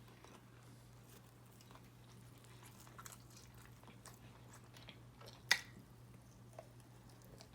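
Faint close-up chewing of food, with scattered small wet clicks and one sharper click about five and a half seconds in, over a steady low hum.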